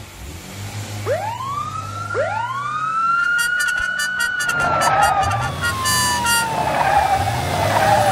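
Two police car sirens wind up one after the other, each rising sharply in pitch, about one and two seconds in. They then hold a high wail that slowly sinks toward the end, over a low vehicle rumble.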